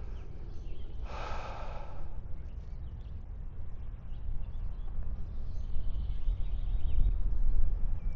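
Low outdoor rumble that grows louder near the end, with a short breathy hiss about a second in.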